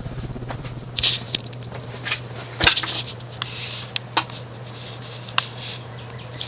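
Emerson 36-inch baby roundnose ceiling fan with an oil-bath motor, running on high speed with a steady motor hum. Scattered sharp clicks are heard over the hum; the loudest comes a little over two and a half seconds in.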